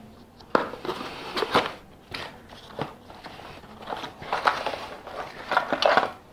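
Cardboard box and its paper contents being handled, the flap opened: irregular crackling and rustling with a few sharp clicks.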